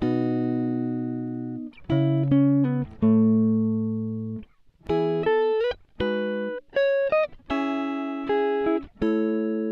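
Background music: a plucked string instrument playing single notes and chords, each struck and left ringing until it fades, a few notes sliding in pitch.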